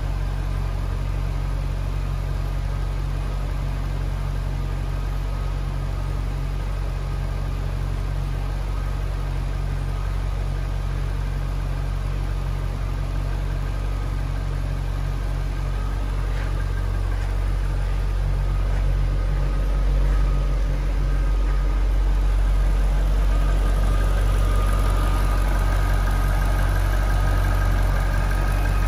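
Jaguar XKR's supercharged 4.0-litre V8 idling steadily. It grows louder in the second half, where a high whine stands out over the low drone.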